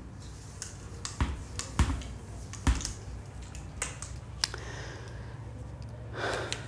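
A cloth duster rubbing across a whiteboard as it is wiped clean, with several sharp clicks and knocks, the loudest about two and a half seconds in.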